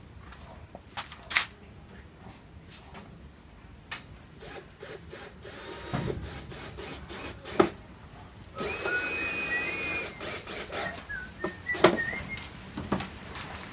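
Sharp knocks and taps on a wooden speaker cabinet as its back panel is fitted, then a power drill running for a few seconds from about nine seconds in, with a thin squeal that wavers in pitch as it drives screws.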